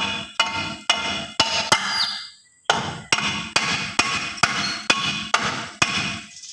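Hammer tapping a pickup's rear brake drum to seat it over the new shoes, about two strikes a second, each ringing briefly, with two short pauses.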